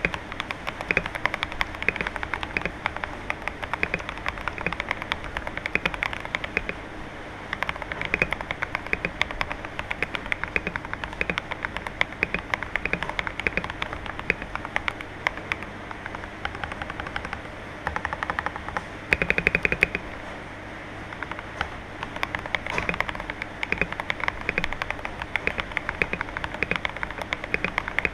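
Typing on a Tester68 mechanical keyboard fitted with G-Pro Silver linear switches and OEM-profile doubleshot keycaps: fast keystrokes clacking in flurries, with a louder flurry about two-thirds of the way through.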